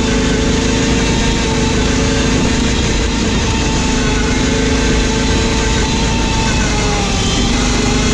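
Riding lawn mower engine running at a steady speed, its pitch sagging briefly about seven seconds in before it recovers.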